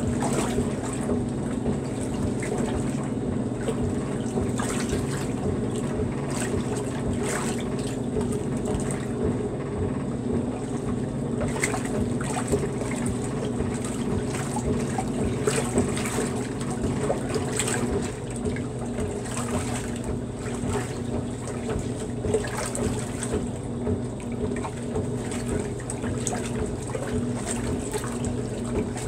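Maytag wringer washer agitating a load in soapy water: water sloshing and swishing in the tub over a steady mechanical hum.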